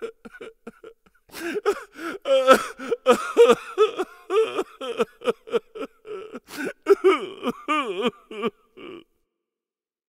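A person's exaggerated nonverbal vocal outbursts: a long run of short, choppy, high-pitched cries with wavering pitch, stopping about nine seconds in.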